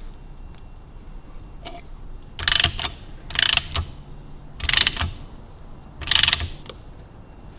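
Socket ratchet handle clicking in four short runs as it turns a stud driver, winding threadlocked studs into the crankcase.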